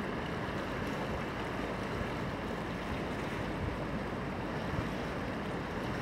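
Steady wash of ocean surf, with wind buffeting the microphone.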